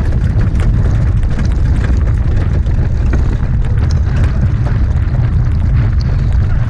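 Steady, loud wind rumble buffeting the microphone as the horse and sulky move at speed, with faint scattered ticks over it.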